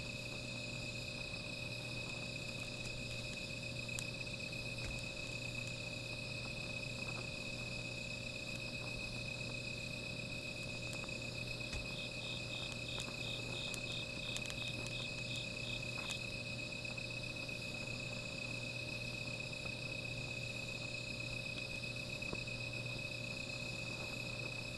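Night insects, crickets, trilling steadily in a high continuous tone, with a second insect chirping in a quick pulsed series for a few seconds midway and a few faint clicks.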